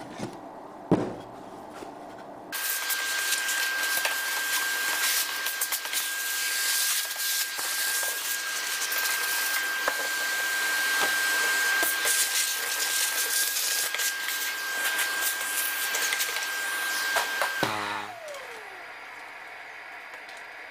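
A sharp knock about a second in, then a plunge track saw starts and runs at full speed with a steady high whine, cutting along its guide rail through plywood. Near the end it is switched off and winds down with falling pitch.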